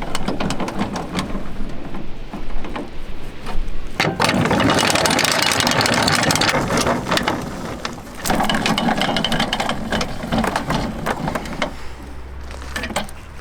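Caravan screw-jack legs being wound, a dense mechanical whirring with many quick clicks from the gears and screw. It is loudest in a stretch from about 4 to 8 seconds in, dips briefly, then carries on until shortly before the end.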